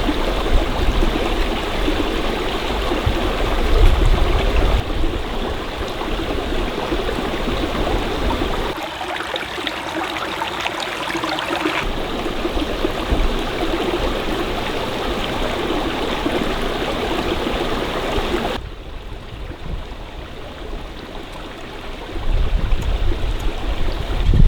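Stream water flowing, a steady rushing noise that changes character abruptly several times. A low rumble sits under it near the start and again near the end.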